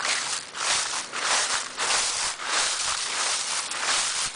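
Footsteps crunching and shuffling through a thick layer of dry fallen leaves, swelling and fading in a steady walking rhythm.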